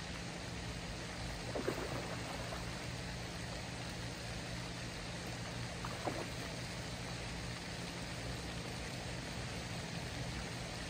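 Steady rushing background noise with a low steady hum underneath, and two short louder sounds, about two seconds and six seconds in.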